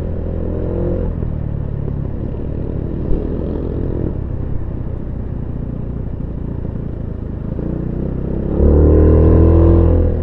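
Motorcycle engine running on the move, with road and wind noise. The engine note rises as it accelerates, briefly about a second in and again, louder, over the last second and a half.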